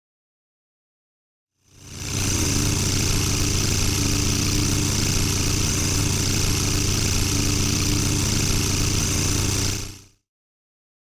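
Propeller aircraft engine running steadily, with a low drone and a hiss above it; it fades in about two seconds in and fades out near the end, with silence either side.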